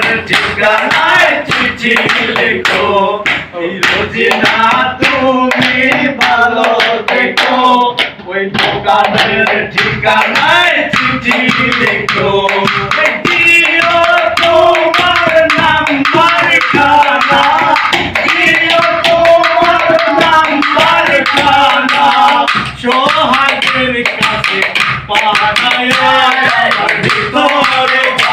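Several men singing a Bengali song together, kept in time by improvised household percussion: a plastic plate slapped by hand and a steel cup tapped, giving a steady run of taps under the voices.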